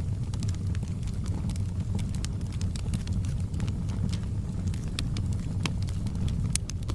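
Fire crackling: irregular sharp snaps and pops over a steady low rumble of burning.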